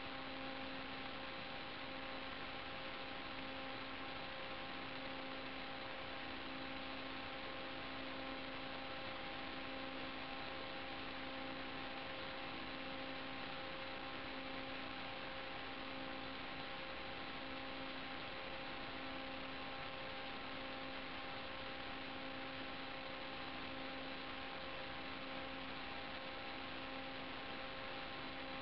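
Steady electrical hum over an even hiss, unchanging throughout: the noise of the analog FPV video link's audio channel.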